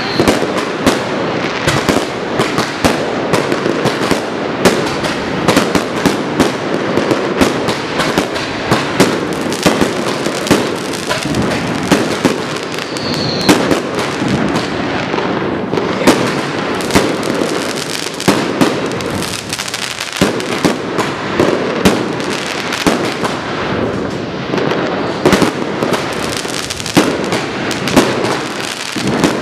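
Dense fireworks barrage: aerial shells and firecrackers banging continuously in quick, overlapping succession. A short whistle about thirteen seconds in.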